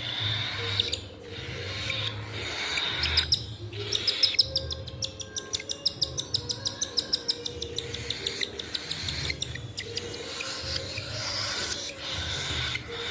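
Baby cockatiel begging while being hand-fed: a hissing begging noise, broken about four seconds in by a fast run of sharp chirps, about five a second, lasting some four seconds.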